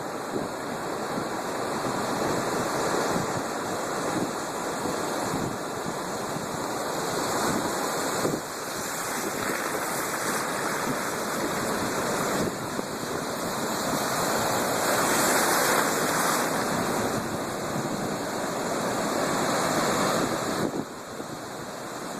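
Stormy Black Sea waves breaking in a continuous rush of surf, with wind buffeting the microphone. The roar swells louder through the middle and drops off shortly before the end.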